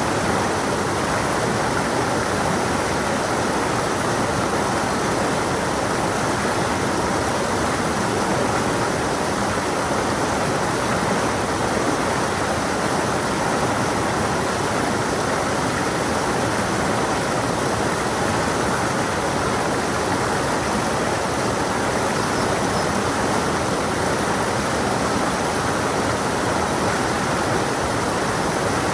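A rocky stream flowing steadily, water rushing and splashing over stones in an even, unbroken wash.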